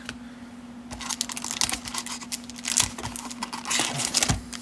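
Irregular light clicks and rustles of foil-wrapped trading card packs and cards being handled, with a hand rummaging among the packs in a cardboard display box, over a faint steady hum.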